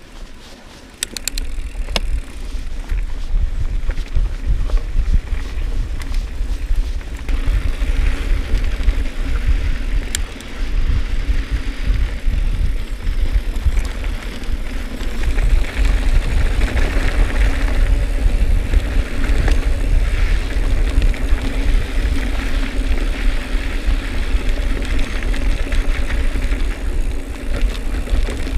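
Mountain bike rolling over a dirt trail: wind buffeting the rider's action camera microphone as a heavy rumble, over tyre noise and a few sharp knocks and rattles from the bike on bumps. The rumble gets much louder about a second in as the bike picks up speed.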